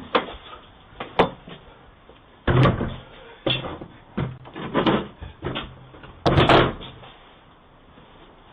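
A series of loud bangs and thuds, like a door being slammed or struck, about eight in all, two short sharp ones first and then longer, heavier ones, the loudest near the end.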